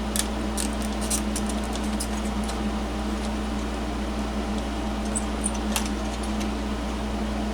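Steady background hum with scattered light clicks and taps of small hand tools working on the radio chassis.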